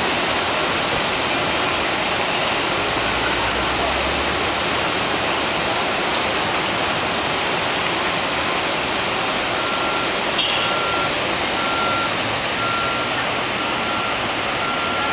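Steady rush of flowing creek water. In the last third a vehicle's reversing beeper sounds at an even pace, one short beep about every half second.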